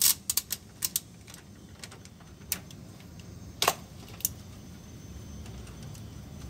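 Metal clinks and clicks of a wrench working the nut on a car battery's terminal clamp: a quick cluster in the first second, then a few single clinks, the sharpest a little past the middle, over a steady low hum.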